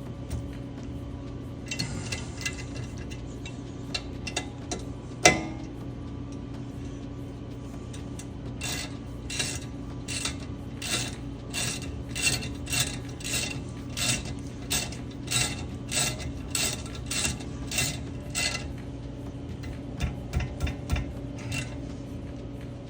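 Ratchet wrench being worked to run bolts back in on a brake caliper: short bursts of clicking about twice a second through the middle stretch, with a single sharp metal clank about five seconds in, over a steady low hum.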